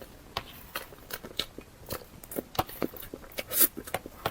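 Eating sounds: a string of irregular, sharp crunches and mouth clicks as someone bites and chews food.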